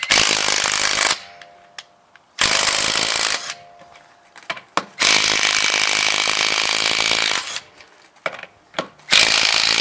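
Mastercraft 20V brushed 1/2-inch cordless impact wrench hammering lug nuts loose, in four bursts of one to two and a half seconds with short pauses between, breaking each factory-torqued nut free without trouble.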